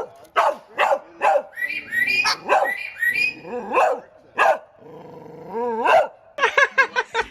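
Parrot imitating a dog's barking: a run of short barks, about two a second, with a longer rising call about six seconds in and a quick burst of barks near the end.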